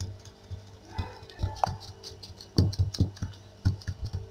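Gloved hand pressing and patting soft dough rounds flat on a tabletop: irregular soft thumps and taps, over faint background music.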